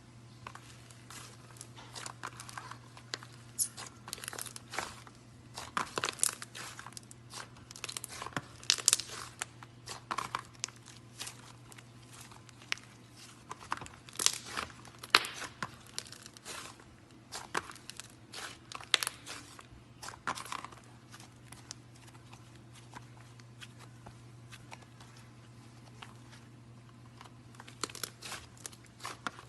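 Fidget toys handled close to the microphone: irregular crinkling and sharp clicks, busy for most of the time, with a lull about two-thirds through before a few more near the end. A faint steady hum runs underneath.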